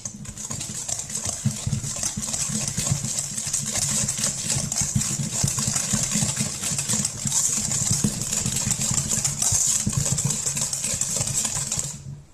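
Wire whisk beating batter in a stainless steel bowl: rapid, steady scraping and clinking of the whisk against the metal, stopping shortly before the end.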